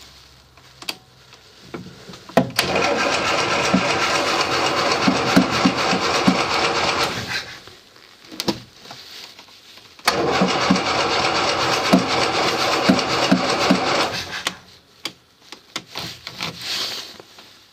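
Land Rover Series 3's carburettored engine cranked on the starter motor twice, each attempt lasting about four to five seconds with a regular pulsing, and not catching either time. Small clicks come before and between the attempts. The engine will not start without petrol poured into the carburettor, which the owner puts down to a fuel supply problem.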